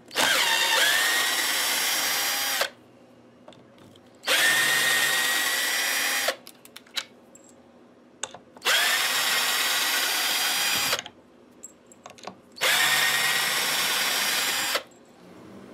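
Power drill with a screwdriver bit backing the four neck-plate screws out of a Telecaster-style guitar, one screw at a time. It makes four runs of steady motor whine, each about two seconds long, with small clicks in the pauses between them.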